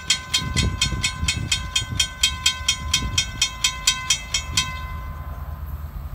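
Railroad grade-crossing warning bell ringing rapidly, about five strikes a second, over a low rumble. It stops about four and a half seconds in, once the crossing gates are down.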